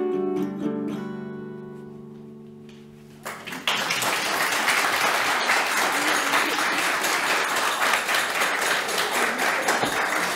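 Last chord of an acoustic guitar ringing and fading out over about three seconds, then audience applause starts suddenly and keeps going.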